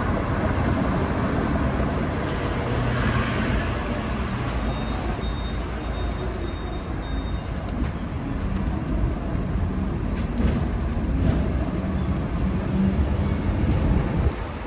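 Hong Kong double-decker tram running along the street: a steady rumble and rattle of the tram in motion, with road traffic around it. A few faint short high beeps sound about five seconds in.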